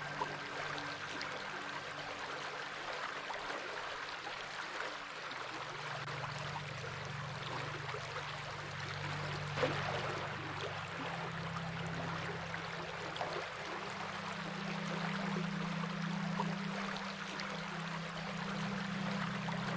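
Stream water flowing with a steady rush dotted with small splashes and trickles. Underneath are low held notes that shift pitch every few seconds.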